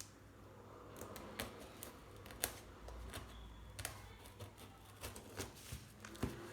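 A cardboard parcel being cut and opened by hand: irregular small clicks, taps and short scrapes of a blade, tape and cardboard.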